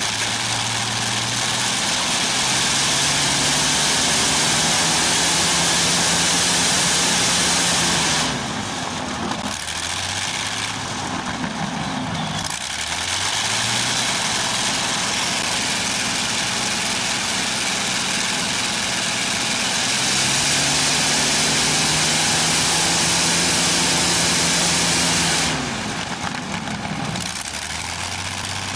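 Restored Continental IV-1430 inverted V-12 aircraft piston engine running on test, repeatedly throttled up and back. It comes up and holds a high, steady note, then drops back about eight seconds in, with the pitch sagging and recovering. It comes up again in two steps and throttles back near the end.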